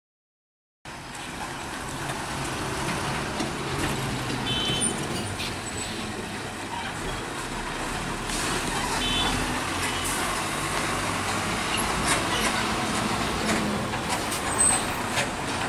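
Road traffic noise that starts abruptly about a second in: a loaded Tata truck and then a coach bus driving over a railway level crossing, their diesel engines running, with a few short high tones mixed in.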